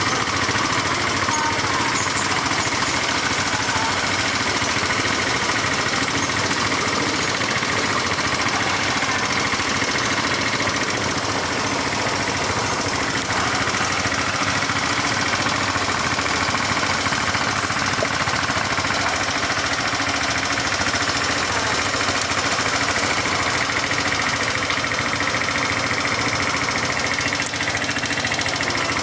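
All-terrain vehicle (ATV) engine running steadily as it rides, with a dense, even noise that holds at one level throughout.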